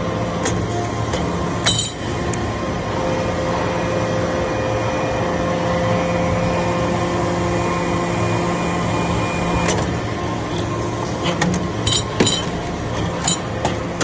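Hydraulic metal-chip briquetting press working: a steady hum from its hydraulic power unit, with held tones that shift while the ram compresses the chips. From about ten seconds in, a run of light metallic clinks as the finished briquettes are pushed out and knock together on the tray.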